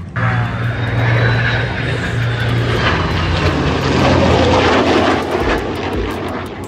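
An aircraft engine at an airshow flypast, starting abruptly, loudest about four seconds in, then fading as the aircraft passes.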